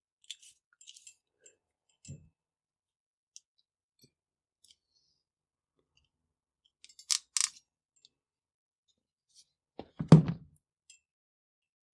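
Small clicks and rustles of wiring being worked by hand with a crimping tool, with a short crisp double snap about seven seconds in and a louder thump about ten seconds in.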